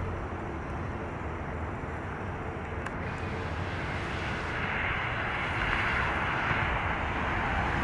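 Steady road noise of a moving car: a low rumble with tyre hiss that swells and grows louder about halfway through.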